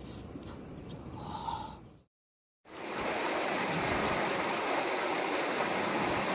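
Steady rush of running water, starting after a brief cut to silence about two seconds in.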